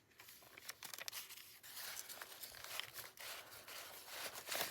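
Paper rustling and crinkling as the pages of a handmade junk journal are turned and handled, with small clicks and a louder rustle near the end.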